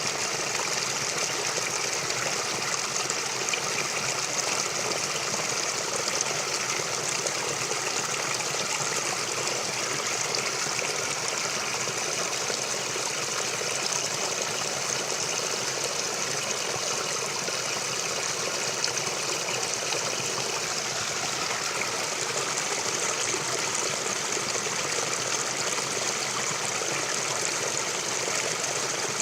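Forest stream flowing: a steady, unbroken rush and trickle of running water.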